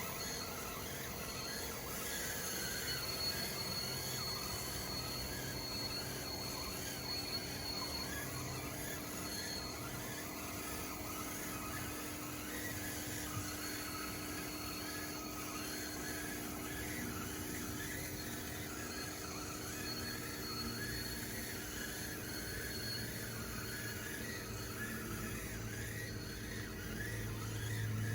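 Small electric drive motors and gearing of a DXR2 RC bulldozer whining steadily as it works, with a thin high whine that comes and goes twice.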